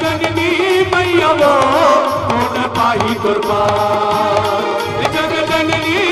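Live Chhattisgarhi jas geet, a devotional folk song, played through a stage sound system: a wavering melodic line with male singing over a steady percussion beat.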